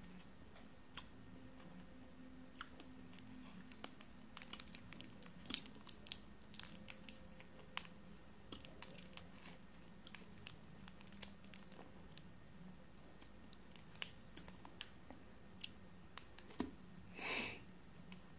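The foil-lined wrapper of a Nestlé Munch chocolate bar crinkling as it is slowly peeled open by hand, in scattered small crackles and clicks, with one louder, longer rustle near the end.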